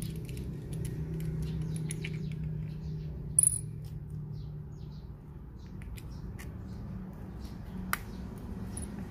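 Small plastic clicks and creaks of a dash-cam suction-cup mount being taken apart and fitted together by hand. There is a sharp high click about three and a half seconds in and another near eight seconds, over a low steady background hum.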